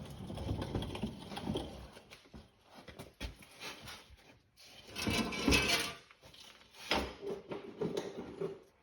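Irregular rattling, scraping and knocking of tools and parts being handled, in three bouts with short pauses between.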